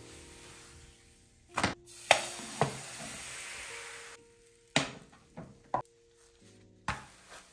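A frying pan knocking and clattering several times against a glass-ceramic hob, with a hiss of crepe batter sizzling in the hot pan for about two seconds while it is tilted and swirled. Quiet background music plays between the knocks.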